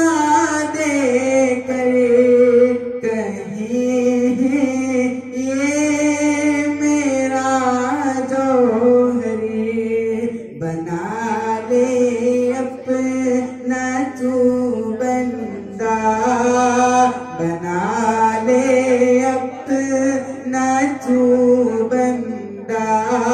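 A boy singing an unaccompanied Urdu devotional song into a handheld microphone, amplified through a PA, in long melodic held lines with short pauses for breath.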